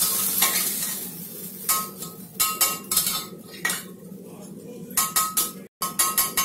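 A spatula knocks and scrapes against the inside of a steel pressure cooker as a ridge gourd and chickpea curry is stirred, giving about a dozen short clinks, some ringing briefly. A frying sizzle dies away in the first second.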